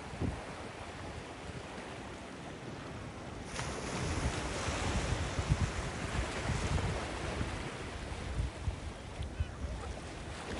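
Ocean surf breaking and washing in, with gusts of wind buffeting the microphone. The wash swells about three and a half seconds in and eases off a few seconds later.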